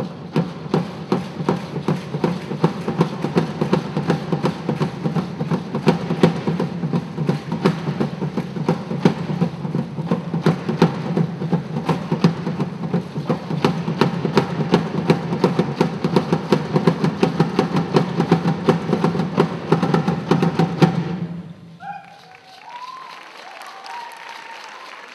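Live hand drums played together in a fast, steady, driving rhythm, with sharp strokes thick on top of a full low drum sound. The drumming stops abruptly about 21 seconds in, leaving quieter sound with a few short pitched notes.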